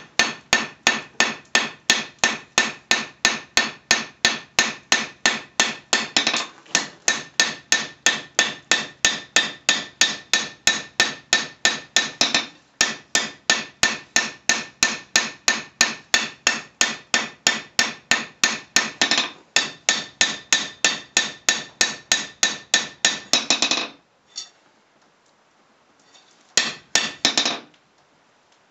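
Hammer blows on a red-hot 1084 steel knife blade on the anvil, about three a second, each with a bright metallic ring. The steady run breaks off briefly a few times and stops about four seconds before the end, then a short flurry of a few more blows follows near the end.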